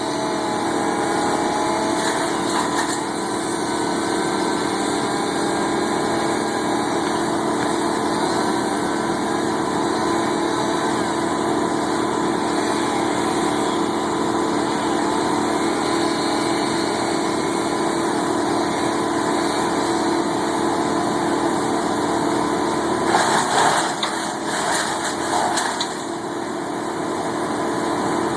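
Vermeer BC1800XL brush chipper's engine running steadily at speed, with a short burst of loud knocks and cracking about 23 seconds in, as wood goes through the chipper.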